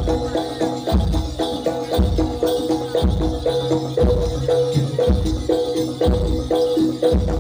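Live jaranan music from a Javanese percussion ensemble: drums beating about once a second under short, repeating pitched notes.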